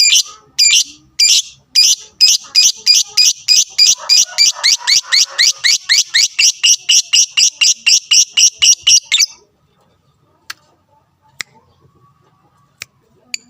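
Lovebird calling with sharp, high-pitched chirps, first about two a second and then speeding into a rapid run of about four a second that cuts off suddenly about nine seconds in; only faint clicks follow.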